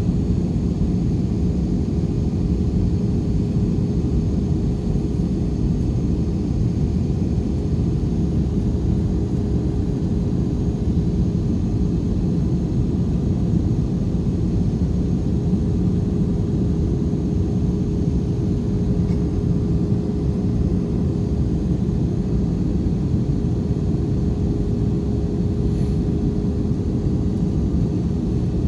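Jet airliner cabin noise in flight: a steady low rumble of engines and airflow with a constant hum on top.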